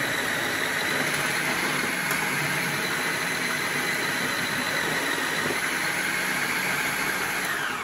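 Bosch MCM 3200W food processor running steadily, its motor spinning the fine shredding disc as carrots are pushed down the feed tube and cut into thin strips. Near the end the motor's pitch starts to drop as it is switched off and winds down.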